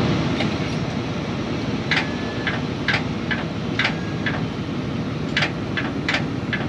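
Sharp clicks, about a dozen, mostly in quick pairs, from a Kenworth semi truck's starter as the key is tried and the diesel does not crank: a dead spot in the starter. A steady low rumble runs underneath.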